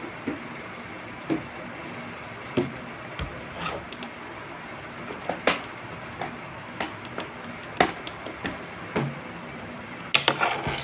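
Hands handling a motorcycle helmet and its plastic mount parts: about a dozen sharp knocks and clicks at irregular intervals, with a quick run of clicks near the end, over a steady hiss.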